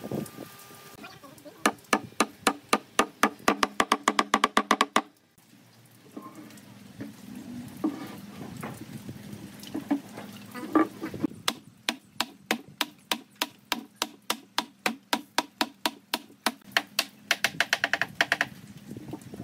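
Wooden mallet striking wood in quick runs of ringing knocks, seating the joints of a wooden table frame: one run about two to five seconds in, then a longer, slightly slower run from about eleven seconds to near the end.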